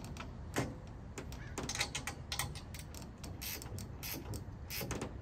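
A hand tool tightening a fitting on an aluminium tube frame, making irregular small clicks and scrapes of metal on metal.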